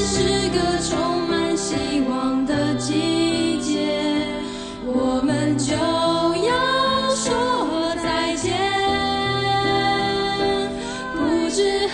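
Background music: a slow song with a singing voice over instrumental accompaniment.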